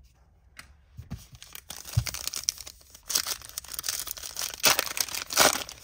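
A baseball card pack's wrapper being torn open and crinkled by hand. The crackling starts about a second in and builds to several sharp, loud rips near the end.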